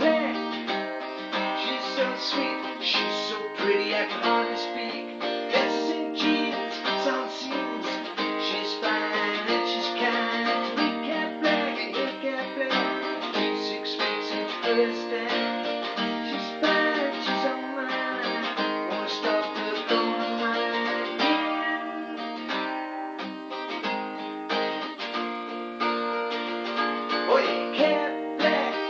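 Guitar strumming chords in a steady rhythm, an instrumental passage of a song after the sung verses.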